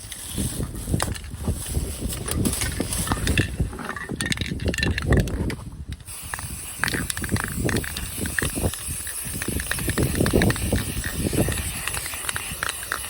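Irregular clicking, rattling and knocking of hands working a part loose, with low thumps of handling close to the microphone.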